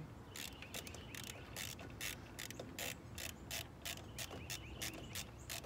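Hand ratchet wrench clicking in a steady run of short, sharp clicks, about three or four a second, as bolts are tightened while the new ignition coil is fastened back down.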